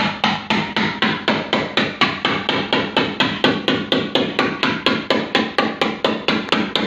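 Hammer tapping steadily on a Nissan Sunny's steel door panel, about four quick blows a second, as a dent is worked out by cold bodywork.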